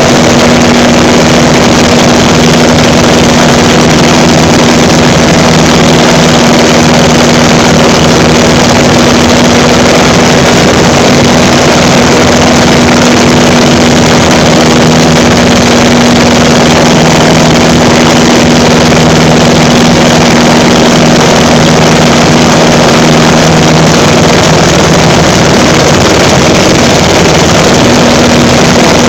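Pietenpol Air Camper's engine and propeller running steadily, heard from the open front cockpit with loud wind rush over the microphone. A steady hum in the drone fades out for a few seconds near the end, then returns.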